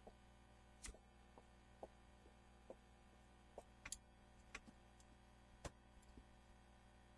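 Near silence broken by faint, short clicks and light taps at irregular intervals, about a dozen in all.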